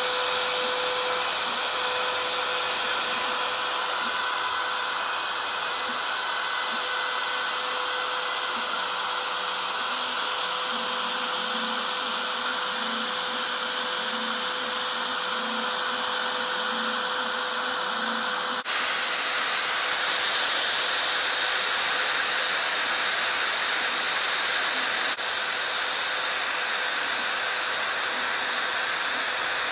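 CNC router spindle running steadily as its end mill cuts 6 mm aluminium sheet, a whine over a steady hiss. The sound changes abruptly about two-thirds of the way through.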